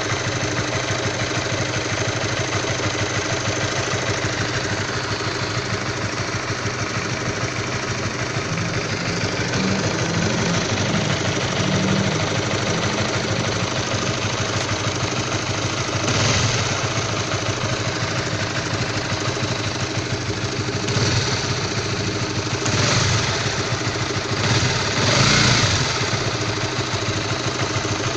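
Honda CB150R's single-cylinder engine idling with a rough, knock-like sound, which the owner says comes on when the engine is cold. The engine note swells briefly four times in the second half.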